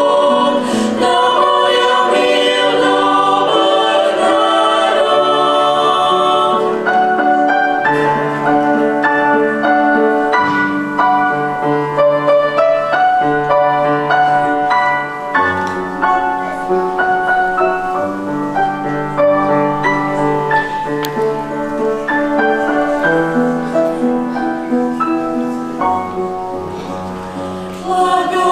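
Youth choir singing a slow part-song in sustained chords, dropping to a softer passage near the end.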